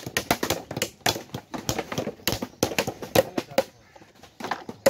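Small hammer driving nails into thin wooden slats of a mango crate: rapid sharp taps, several a second, with a brief pause about four seconds in before a few more hits.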